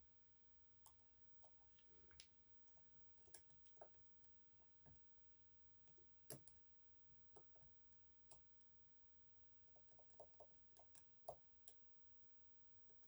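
Faint, irregular small clicks of a short flat hook pick working the sliders inside an EVVA 3KS high-security lock held under a tensioner, while picking.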